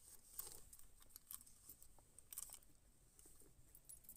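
Near silence with faint scattered clicks and light rustling.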